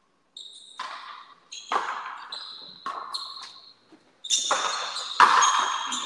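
Frontenis rally: a rubber ball being struck by strung rackets and rebounding off the fronton's walls and floor. The hits come in a quick irregular series, about eight or nine in all, each sharp with a ringing echo, and the loudest come near the end.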